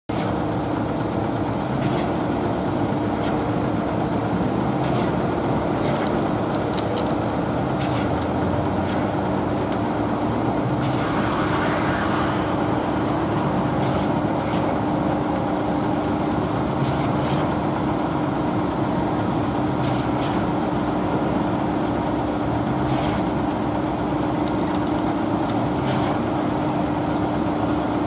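Queued concrete mixer trucks idling, a steady diesel hum with one constant droning tone. A short burst of hissing air comes about eleven seconds in.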